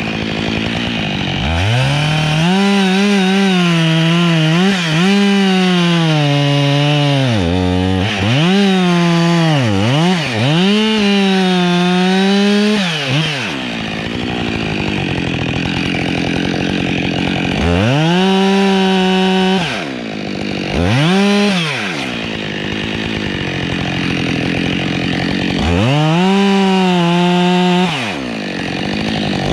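Husqvarna 572XP two-stroke chainsaw repeatedly revved to full throttle and cutting through pine, its pitch sagging and wavering under load. It drops back to idle between cuts, about halfway through and again near the end, before revving up once more.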